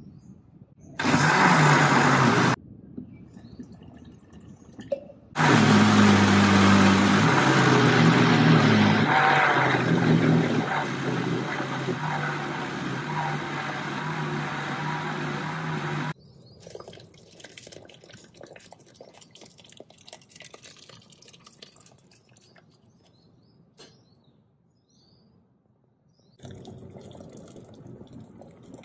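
Countertop blender grinding fish bones with water into laksa stock: a short pulse of about a second and a half, then a run of about eleven seconds, its motor pitch shifting in steps. Near the end, the blended fish liquid is poured into a pot of broth.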